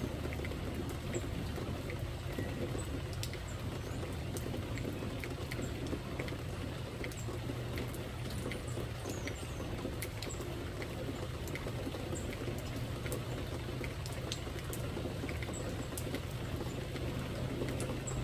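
Steady rain falling, with scattered sharp drips and faint, short high-pitched chirps over it.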